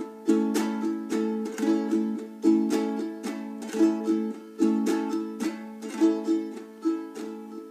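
Ukulele strummed in a calypso pattern: a light touch on the top strings, a finger roll across all strings, then quick up and down strokes, repeated on one held chord. The strumming stops about seven seconds in and the last chord rings out and fades.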